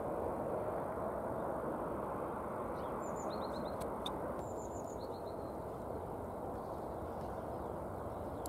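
Steady low rumble of outdoor background noise, with a small bird calling twice, each time a short run of quick falling chirps, about three and five seconds in.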